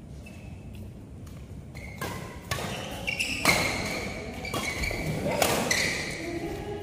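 Badminton rally on an indoor court: about four sharp racket hits on the shuttlecock, spread unevenly over a few seconds.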